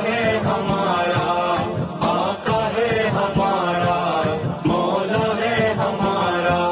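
Devotional song continuing: voices chanting a drawn-out melody without clear words over musical accompaniment with a beat.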